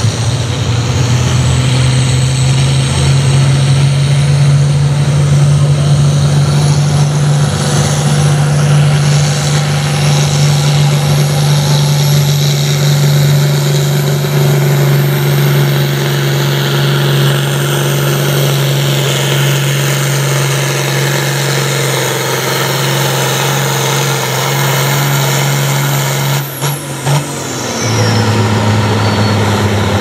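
International 1066 farm tractor's diesel engine running flat out under heavy load as it drags a pulling sled, with a high whine that climbs steadily in pitch. About 26 seconds in the throttle is cut: the whine falls away sharply and, after a brief dip, the engine settles to a lower, steady idle at the end of the pull.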